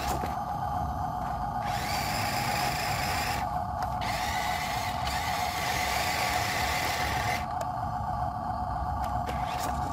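Small electric motor and gearbox of an RC model truck whining steadily, like a small drill, with a higher hiss that drops out several times.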